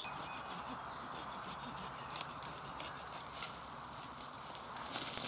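Twigs and leaves rustling and crackling as a person pushes through woodland undergrowth, louder near the end. A bird sings a quick run of short high chirps in the background about midway.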